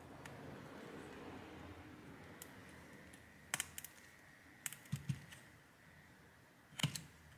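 Small cable connectors being pressed by hand into their sockets on a laptop mainboard: a few sharp little clicks and snaps, spaced a second or so apart, the loudest near the end.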